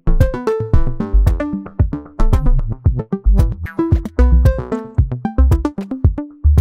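Electronic music played by a software modular synthesizer patch in VCV Rack: quick runs of short plucked synth notes, several a second, over deep kick-drum thumps and sharp clicky percussion.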